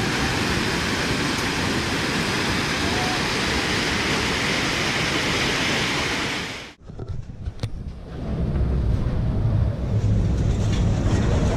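Rushing river floodwater, a steady loud rush that cuts off abruptly about two-thirds of the way through. Then strong wind buffets the microphone in low gusty rumbles, with a few clicks.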